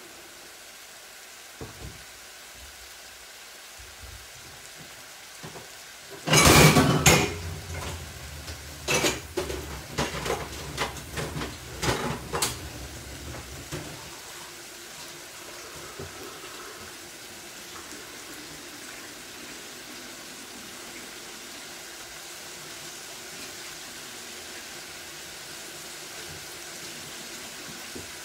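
Onions and tomatoes sizzling gently in a frying pan. About six seconds in comes a loud clatter of pots and dishes, then a run of knocks and clinks of crockery and utensils for about six seconds.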